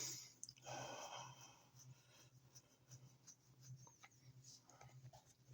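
Near quiet room tone with a low steady hum. About half a second in, a person breathes out for about a second, and faint small clicks follow.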